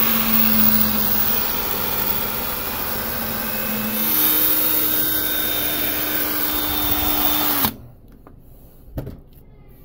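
Cordless drill running with a round-ended punch in its chuck, pressed down into the end of a brass tube to flare it into a flanged bearing bushing. The motor whine steps up in speed about four seconds in, then stops suddenly near the end, followed by a single knock.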